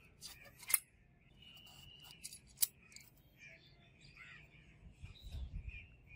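Small metal clinks as a brass sword guard is slid down the blade onto the tang: two sharp clicks about two seconds apart, with a dull knock near the end as the handle is brought up. Birds chirp faintly in the background.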